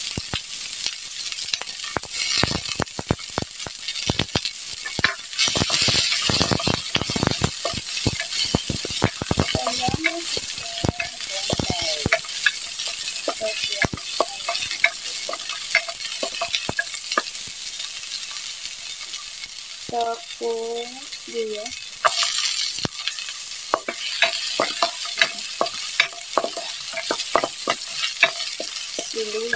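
Garlic and chopped green onion sizzling in hot oil in a nonstick wok. A wooden spatula stirs them, scraping and knocking against the pan in frequent irregular clicks.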